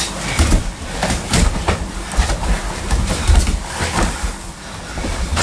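Irregular thuds and slaps of bodies and bare feet hitting training mats, with scuffling, as students spar and throw each other to the floor.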